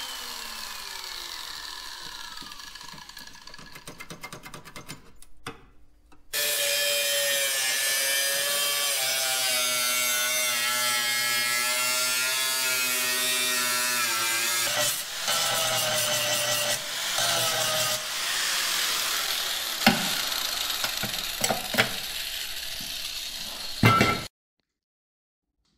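Power tool cutting sheet metal off a truck firewall. It first winds down with a falling whine, then starts again about six seconds in and runs with a steady whine that wavers slightly as it cuts, with a few sharp knocks near the end before the sound cuts off abruptly.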